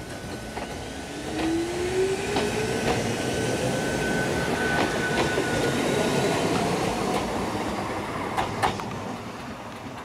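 Ichibata Electric Railway electric train passing close and pulling away. Its drive whine rises steadily in pitch as it accelerates, and its wheels clack sharply over the rail joints. The rumble swells, then eases off as the train moves away.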